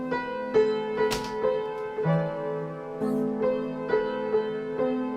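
Piano playing chords, with notes struck in a steady pulse about twice a second and the chord changing a few times.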